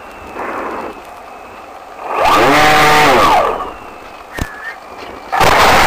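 Electric motor and propeller of an FPV model airplane, picked up on board: about two seconds in the motor spools up, holds for roughly a second and spools back down. A sharp click follows, then a loud rush of noise near the end.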